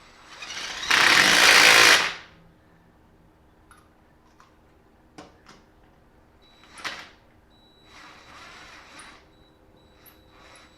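Cordless impact wrench running a lug nut on a wheel, one burst of about a second and a half that builds as the trigger is squeezed and then cuts off. It is followed by a few faint clicks and two weaker, shorter bursts.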